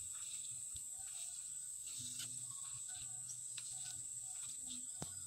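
Steady high-pitched insect chorus droning in a rice field, with faint scattered ticks.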